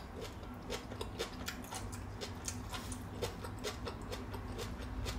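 Close-up chewing of crunchy fish roe from braised fish: a run of small, irregular crackling clicks, several a second.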